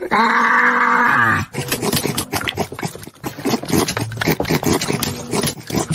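A pit bull-type dog lets out one long, drawn-out vocal call that slides down in pitch and ends about a second and a half in. A run of short, irregular vocal sounds and clicks follows.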